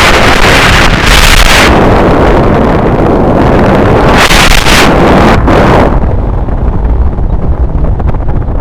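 Strong wind rushing and buffeting over the microphone in flight, loud throughout, with gusty surges about a second in and again around four to six seconds in.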